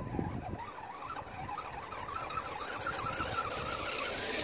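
Electric motor and gear whine of a 1/10-scale RC rock crawler driving over grass and dirt, wavering with the throttle and rising a little in pitch. It grows louder as the truck nears and cuts off abruptly near the end.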